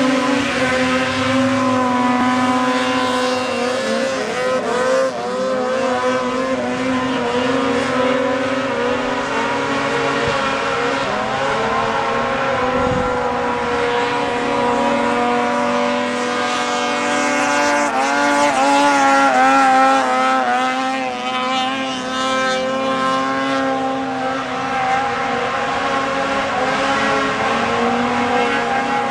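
Two racing snowmobiles running flat out as they skim across open water, their engines a steady high whine that wavers in pitch and is loudest about two-thirds of the way through.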